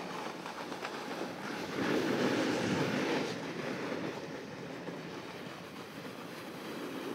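Snowboard sliding over groomed snow, a steady scraping rush. It swells about two seconds in as the board's edge bites into a turn, then eases off.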